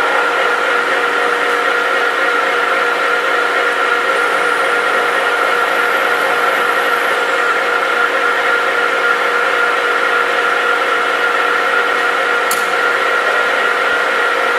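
Knuth Turnado engine lathe running steadily under power, its geared headstock giving a steady whine over mechanical noise, while a tailstock-held drill bores into the turning workpiece. A brief high click about two-thirds of the way through.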